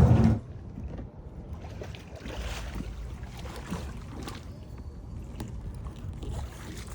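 A music track with drums cuts off just after the start, leaving faint water sounds by a kayak, with a low rumble and a few light knocks.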